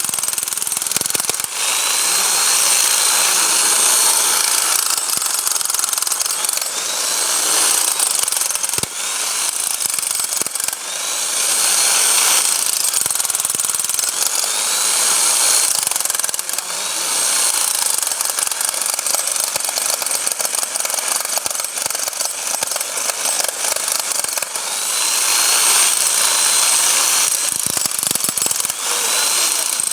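Bosch hammer drill running in hammer mode: a continuous, dense rattle of rapid blows with a high motor whine whose pitch dips and recovers every few seconds.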